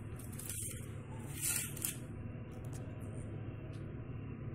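Faint steady low hum of background room noise, with a few soft brief rustles in the first two seconds, the loudest about a second and a half in.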